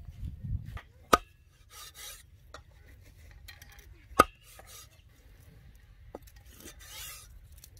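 Meat cleaver chopping raw goat meat on a round wooden log chopping block: two sharp chops, about a second in and about four seconds in, with lighter knocks and scraping of blade and meat against the wood between them.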